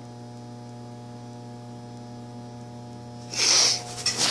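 Steady electrical mains hum with a stack of overtones, from a powered-up Huanyang HY04D023B variable frequency drive idling with no motor running, with a brief scuffing noise about three seconds in.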